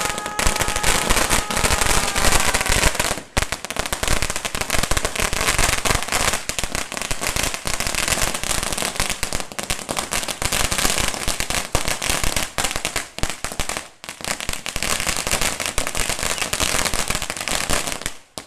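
A string of firecrackers on the ground going off as a rapid, continuous stream of sharp bangs, with two brief lulls along the way.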